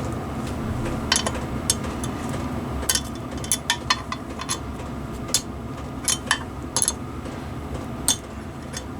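Scattered sharp metallic clicks and clinks of small hand tools against metal parts, some with a short ringing, over a steady low hum.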